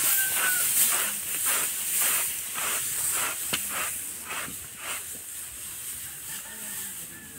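Dry straw rustling and crackling under the hooves of water buffaloes being driven across it: a quick run of steps, about three a second, that thins out after about five seconds.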